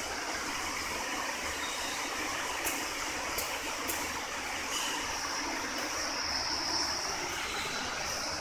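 Steady hum and hiss of workshop machinery, with a few sharp clicks about three seconds in and a faint high whine in the second half.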